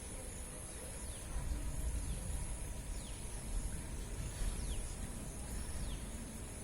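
Outdoor ambience: a low rumble that swells in the middle, a steady high-pitched insect drone, and a bird giving short, high, falling notes about once a second.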